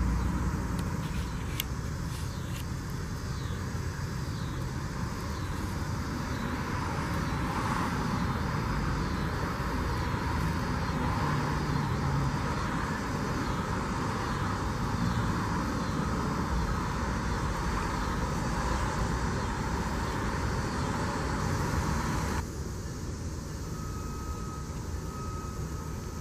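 Steady outdoor background rumble of distant road traffic, with a faint high chirp repeating a little more than once a second. About 22 seconds in, the level drops suddenly.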